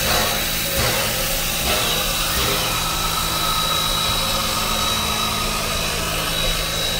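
Everett Railroad No. 11 steam locomotive standing at rest: a steady hiss of steam under a low mechanical hum, with a thin high whine held steady throughout.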